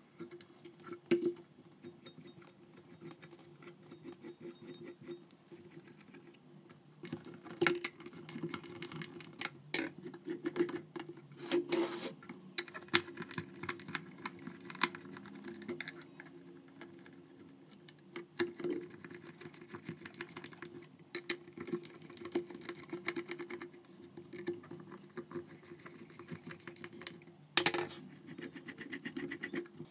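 Handling noises: scattered clicks, taps and rubbing as a toothed rubber timing belt is worked onto small metal pulleys and a screwdriver turns the motor's mounting screws in a plywood box, over a faint steady hum.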